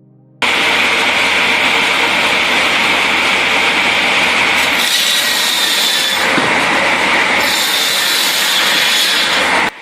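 Heavy wood-processing machine cutting and shredding wood: a loud, steady, rough noise that starts abruptly just after the beginning and cuts off abruptly near the end.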